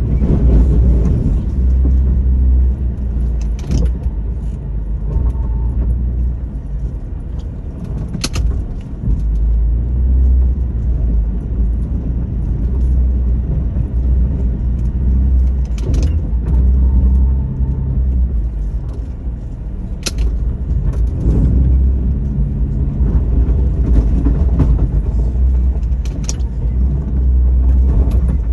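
2002 Jeep Liberty engine running while the Jeep pushes snow with its plow. The deep engine drone swells and eases every few seconds with the back-and-forth driving, and a few sharp clicks or clanks sound now and then.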